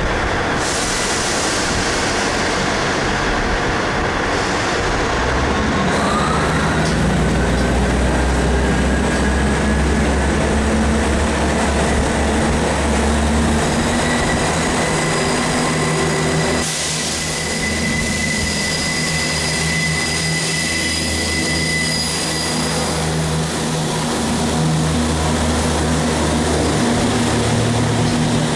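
South Western Railway Class 159 diesel multiple unit running at a station platform: a steady low diesel engine hum, with a whine that rises in pitch about six seconds in. Later a thin, steady high squeal runs for several seconds as the unit moves along the track.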